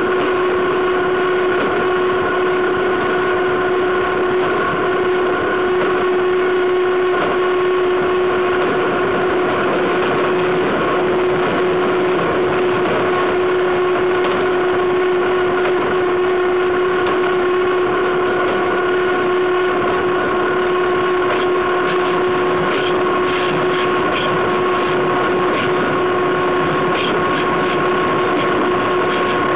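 Freight train wheels running along the rails at speed, heard right beside the bogie: a loud, steady rolling noise with a steady whine held through it and a few faint clicks near the end.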